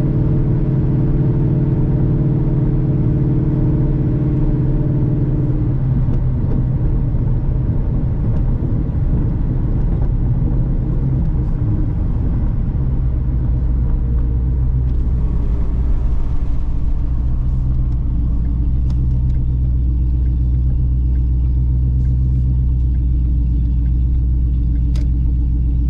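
Ford Boss 302 Mustang's 5.0-litre V8 cruising at about 72 mph, just above 2,200 rpm, through replacement side pipes: a steady low exhaust drone that grows deeper and stronger about halfway through.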